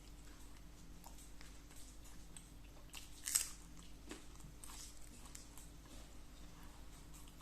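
A person chewing food close to the microphone: faint, wet chewing with small mouth clicks, and one louder crunch a little over three seconds in.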